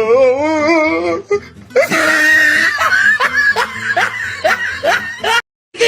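Laughter, a run of short rising giggles about three a second, over music; it cuts off abruptly near the end.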